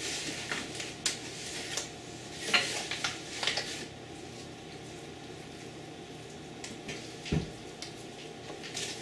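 Quiet food-handling sounds: hands shaping a raw gar fish mixture into balls in a plastic bowl while flour is sprinkled and worked in a plastic tray. There are soft rustles, a few light clicks in the first few seconds, and a dull thump about seven seconds in.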